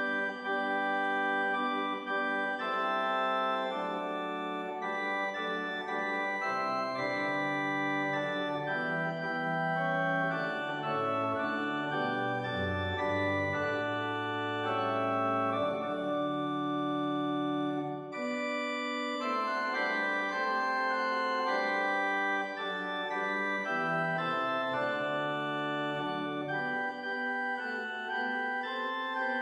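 Background instrumental music of long held chords that change slowly, with a deeper bass part for a stretch in the middle.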